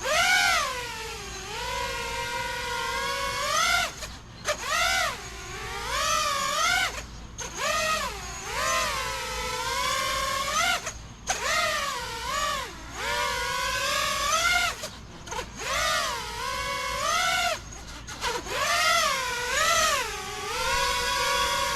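Brushless motors of a Lumenier QAV-S JB Edition 5-inch FPV quad whining in acro flight. The pitch swoops up and down with each throttle change and cuts out briefly several times as the throttle is chopped.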